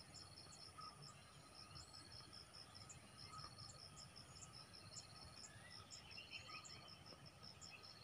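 Faint insect chorus: rows of rapid, evenly repeating high-pitched chirps over a steady thin high tone.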